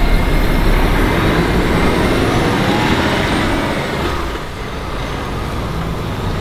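Heavy semi-truck with an enclosed car-transporter trailer pulling away, its engine and tyres running close by, growing a little quieter about four and a half seconds in.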